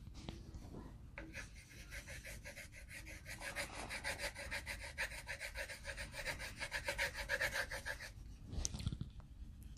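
Colored pencils shading back and forth on paper over a clipboard: quick, scratchy strokes, several a second. They start about a second in, grow louder midway and stop near the end.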